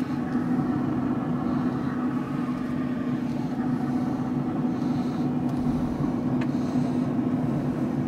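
Traeger pellet grill running at temperature, its fan giving a steady hum, with one faint click about two-thirds through.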